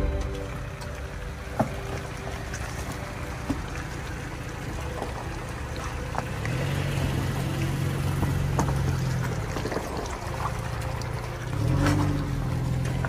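Toyota Tacoma pickup's engine running. A steady low hum comes in about halfway through and glides up briefly near the end, over a noisy background with a few sharp clicks.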